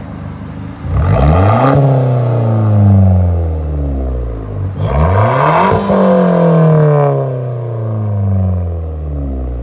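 2017 Nissan Sentra Nismo's 1.6-litre turbocharged four-cylinder, muffler deleted, revved twice from idle at the exhaust tip. Each rev climbs quickly in pitch and falls slowly back to idle, about a second in and again about five seconds in.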